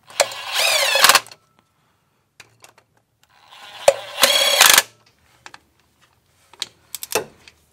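Bosch cordless drill-driver running M6 bolts into a hydraulic release bearing's adapter plate in two short bursts of about a second each, its motor whine wavering in pitch with the load. A few sharp clicks near the end as the bolts are torqued down with a hand torque wrench.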